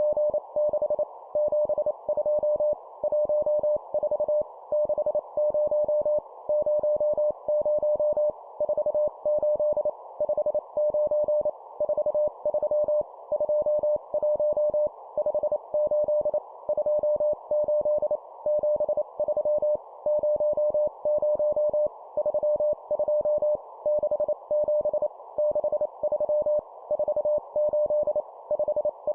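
Morse code (CW) practice tone keyed at 25 words per minute, sending two-number groups as fast dots and dashes in a single mid-pitched beep, with short pauses between groups. A steady band of hiss, like a receiver's filtered noise, runs under it.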